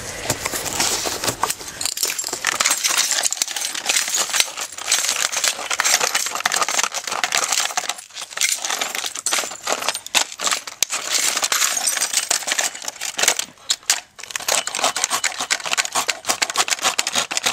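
A coffee maker being smashed apart: a dense, continuous run of cracking, crunching and clattering, with brief lulls about eight and fourteen seconds in.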